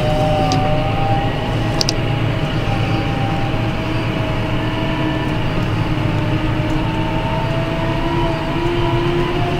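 John Deere tractor with a front loader driving, heard from inside the cab: its diesel engine runs at a steady drone under a high whine that drifts slowly in pitch, with a couple of light clicks in the first two seconds.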